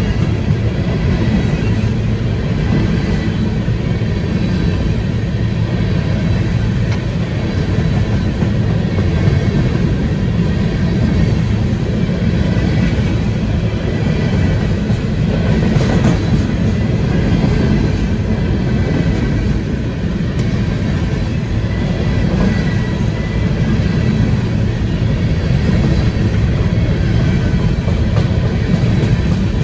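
Freight train of coal hopper cars rolling past, its wheels on the rails making a loud, steady rumble with no break.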